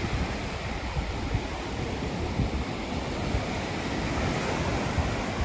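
Ocean waves washing onto the beach in a steady rush of surf, with wind buffeting the microphone.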